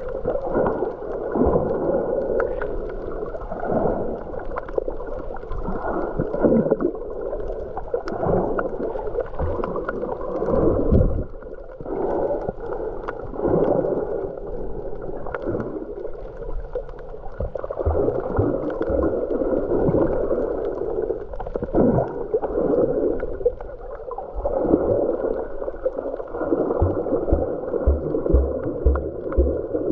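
Muffled underwater water noise, heard through a camera's waterproof housing while snorkeling: a continuous, swelling gurgle and rush of moving water. A few short low knocks come near the end.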